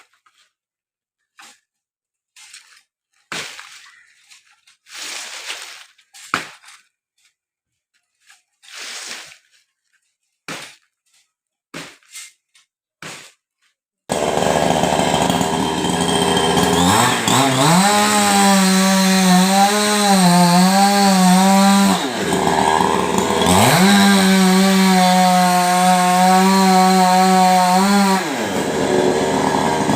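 Two-stroke chainsaw starts running about halfway through, idling briefly, then revs up to full throttle twice, each time for about five seconds before dropping back to idle. Before it, a few scattered short knocks and noises with quiet between.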